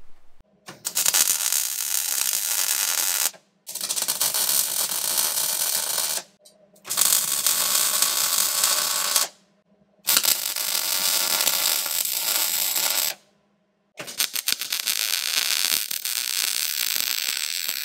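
MIG welder arc crackling as beads are laid, joining a steel truss to a Dana 60 axle housing. Five separate welds of about two to three seconds each, each cut off sharply.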